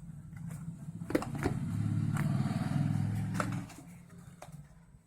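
A motor vehicle passing by: a low engine hum that swells over the first couple of seconds, holds, then fades away shortly after the middle. A few light clicks sound over it.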